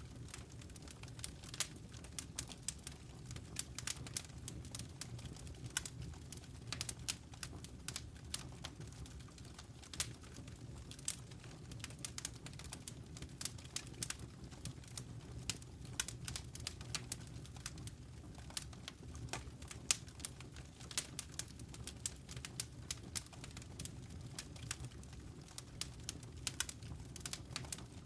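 Wood fire burning in a fireplace: a steady low rumble of the flames with many irregular sharp crackles and pops.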